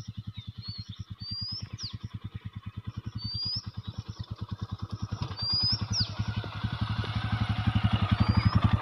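Royal Enfield Himalayan's 411 cc single-cylinder engine running at low revs, with an even beat of about nine pulses a second, as the motorcycle rolls down a dirt slope. It grows louder near the end as the bike comes close.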